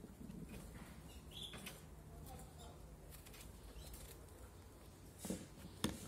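Faint cuts and taps of a small Victorinox paring knife slicing cucumber on a table, with two sharper knocks of the blade on the surface near the end.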